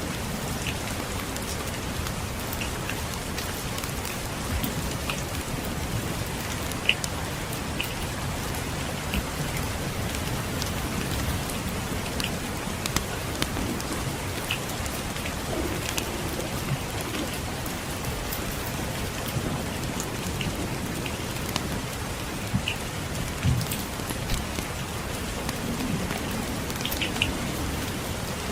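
Steady rain falling on a surface, an even hiss with irregular sharp pops and crackles scattered through it, as from a crackling wood fire mixed with the rain.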